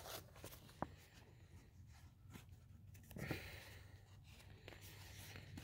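Near silence: faint outdoor background with a sharp faint click a little under a second in and a soft brief rustle a little after three seconds.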